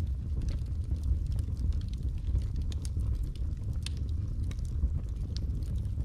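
Logs burning in a fireplace: a steady low rumble of flames with scattered, irregular sharp crackles and pops of burning wood.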